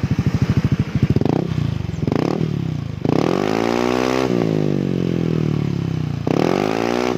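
Yamaha NMAX scooter's single-cylinder four-stroke engine through a hollowed-out ('bobok') stock muffler with a stainless slip-on header, giving a bassy exhaust note. It idles with an even pulse, is blipped twice, then revved, with the pitch rising and sinking slowly as the revs fall. It is revved once more near the end.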